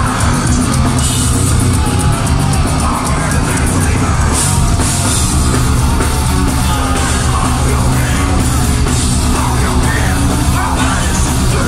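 Melodic death metal band playing live through a venue PA: distorted electric guitars, a drum kit and screamed vocals, loud and dense throughout.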